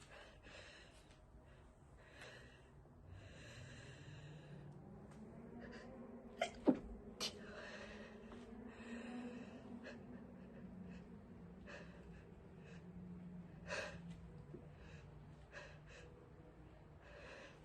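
A person stifling sneezes. A run of breathy gasping inhales builds up, then comes a quick cluster of short, muffled, held-in sneezes about six to seven seconds in, and a further single stifled sneeze later on.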